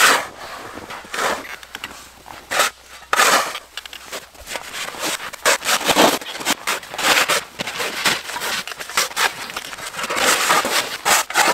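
Two snow shovels, one metal-bladed and one plastic, scraping and pushing snow across bare lake ice in repeated irregular strokes, clearing the snow down to the ice.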